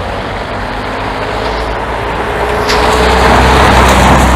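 A car approaching on the street, its engine hum and tyre noise growing steadily louder as it comes close near the end. A brief sharp click sounds about two-thirds of the way in.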